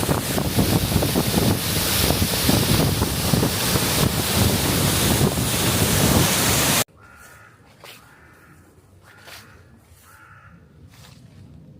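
Loud steady rush of the Craigie Linn waterfall, cut off abruptly about seven seconds in. Then a much quieter stretch with a few short, harsh bird calls.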